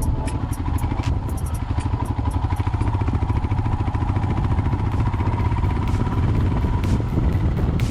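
Royal Enfield Himalayan's single-cylinder engine running at a steady pace while riding on a dirt trail, its firing a fast even throb, with scattered ticks and clatter over it.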